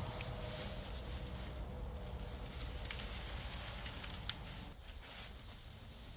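Rustling and scraping of cut tree branches being dragged, with a few sharp snaps or clicks.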